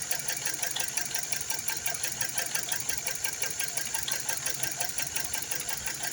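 A 2012 Toyota Corolla engine idling with a fast, even ticking. The engine is misfiring because of a leaking cylinder head gasket.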